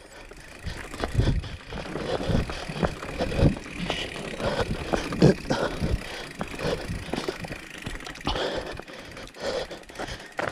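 Mountain bike being ridden over rough ground, its frame and parts rattling with irregular knocks over a steady rush of noise.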